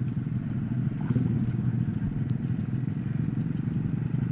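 Trail motorcycle engine running steadily at low revs, without revving.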